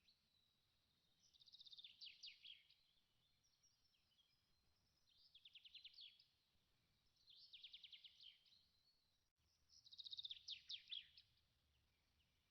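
Faint birdsong: a small bird repeating a short, fast trilled phrase four times, a few seconds apart, with faint chirps between.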